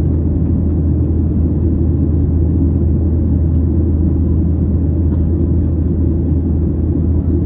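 Steady low rumble of an airliner's engines and airflow, heard inside the passenger cabin in flight.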